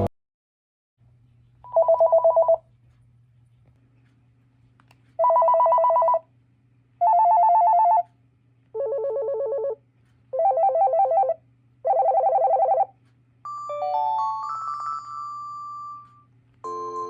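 Panasonic KX-TGF780 cordless phone handset playing short samples of its electronic ringtones: six trilling ring bursts of about a second each at different pitches, then a short rising melody ending on a held note. A faint steady hum sits underneath.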